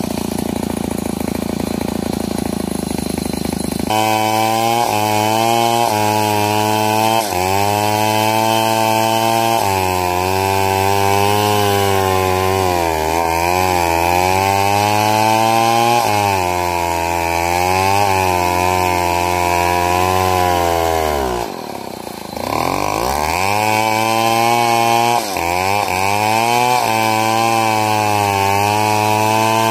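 Stihl MS070 two-stroke chainsaw: a rough running note, then the throttle opens about four seconds in and it runs at high revs while cutting wood. The engine pitch sags and recovers under load, bogging down hard about three quarters of the way through before it picks back up.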